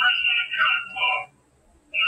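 High-pitched, voice-like sounds that stop a little over a second in.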